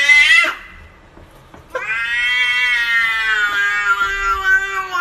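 Domestic cat meowing: a rising call that ends about half a second in, then, after a pause of over a second, one long drawn-out call of about three seconds at a steady pitch.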